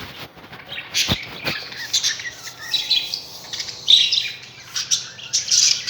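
Many budgerigars in a cage chattering and chirping together, with two sharp knocks about a second in.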